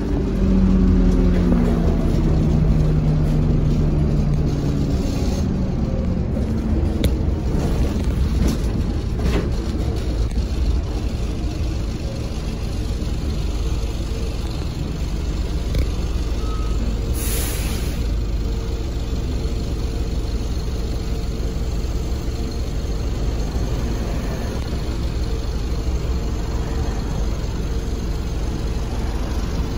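Interior sound of a Dennis Dart SLF single-deck bus on the move: a steady low diesel engine and road rumble, with a falling tone over the first five seconds. A brief hiss of released air comes about seventeen seconds in.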